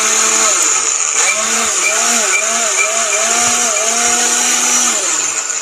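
Jaipan Fruttica blender motor running fast, blending fruit and water into juice in its plastic jar. The pitch wobbles up and down repeatedly as the load shifts, then falls as the motor is switched off and spins down near the end.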